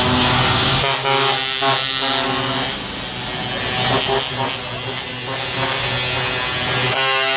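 Truck air horns blowing long, steady blasts, the pitch changing about a second in and again near the end, over the diesel engines of a slow-moving truck convoy.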